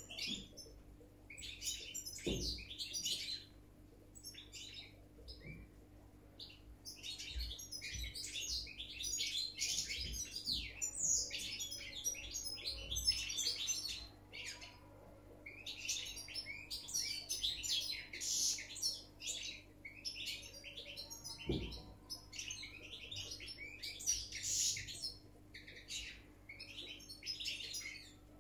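Caged European goldfinch singing: fast twittering, tinkling phrases a few seconds long, broken by short pauses.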